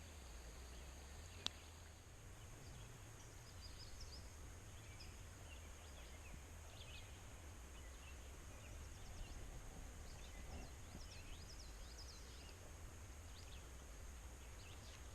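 Faint outdoor ambience: scattered small bird chirps over a low steady rumble, with a single sharp click about a second and a half in.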